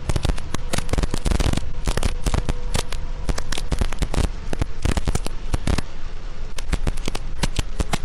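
Heavy rain pelting a vehicle's windscreen and roof, picked up by the dashcam as a dense, irregular crackle of sharp taps over a low rumble.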